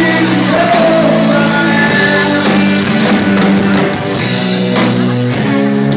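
Live rock band playing loudly: electric guitars and bass holding chords over a steady drum-kit beat.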